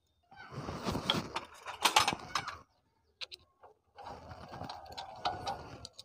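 Steel tools clicking and scraping against the circlip on a small gear in a Honda CD70's open clutch-side case as the circlip is worked off, in two spells of a couple of seconds each.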